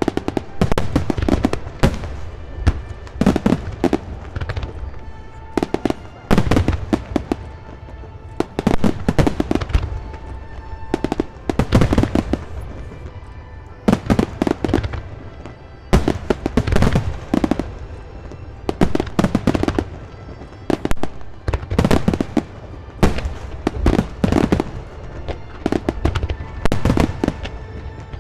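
Aerial fireworks bursting in rapid volleys: sharp bangs and crackles overlap in dense clusters every second or two.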